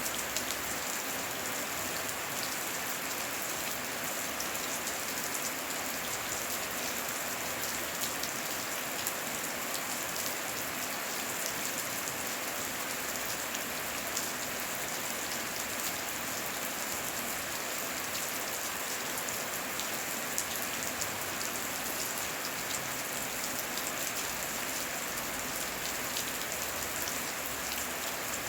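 Steady rain falling: a dense, even hiss with many small drop ticks scattered through it, no thunder.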